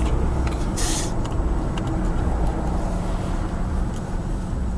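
A car driving, its engine and road noise a steady low rumble, with a brief louder hiss about a second in.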